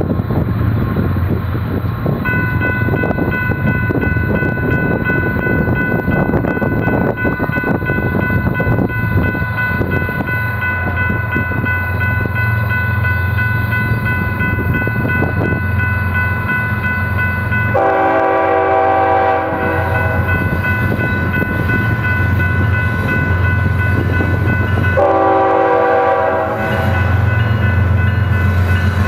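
A BNSF freight train's lead GE diesel locomotive approaches with a steady low engine rumble and sounds its air horn chord twice, a blast of about two seconds and then a shorter one, as it nears the road crossing. A steady high ringing runs beneath it from a couple of seconds in.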